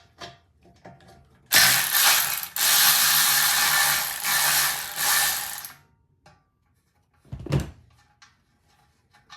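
Ratchet wrench clicking rapidly for about four seconds, with a brief pause, as the fuel tank's fixings on the outboard are undone. One dull thump follows near the end.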